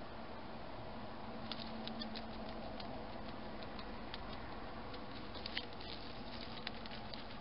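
Irregular faint ticks and crackles of a hedgehog moving and nosing about in dry straw and leaves, over a steady hiss.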